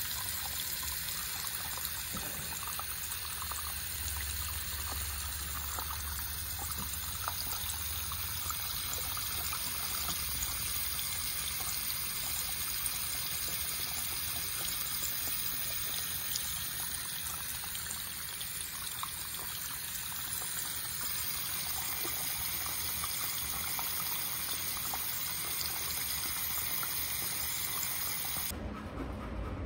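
Bathroom sink tap running, the water splashing over cupped hands and into the basin in a steady rush that cuts off abruptly near the end.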